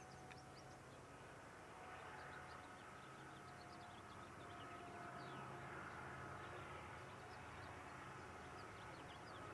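Faint outdoor ambience: small birds chirping in short high notes over a low, steady distant rumble.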